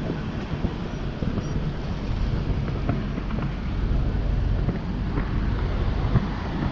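Steady road traffic noise from passing cars, with low wind rumble on the microphone of a moving bicycle.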